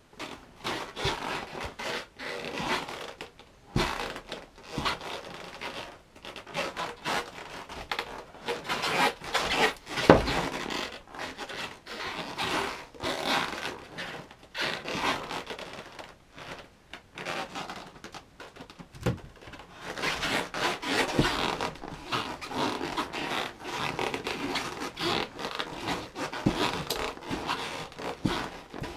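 Head Rush snowboard, strapped into bindings, being flexed and twisted on a rug: its base and edges rub and scrape against the carpet in irregular strokes. A few sharper knocks come from the board striking the floor, the loudest about ten seconds in.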